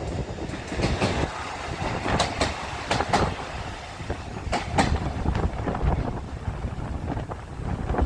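Train wheels clacking over rail joints as a train passes: sharp clicks in quick pairs, several times at uneven spacing.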